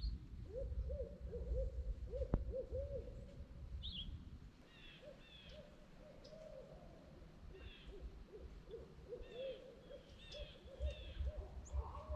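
Owls hooting: many short, arched hoots in quick runs, with a few thin higher chirps above them and a low rumble underneath. A single sharp click about two seconds in.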